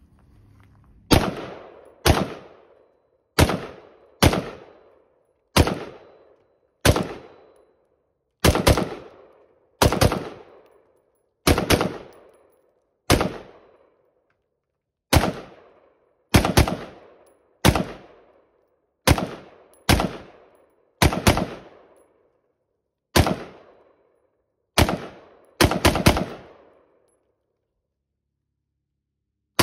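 Schmeisser AR-15 rifle in .223 Remington firing about two dozen single shots, mostly a second or so apart with some quick pairs and a fast run of three near the end, each crack followed by a short ringing echo. The firing stops a few seconds before the end.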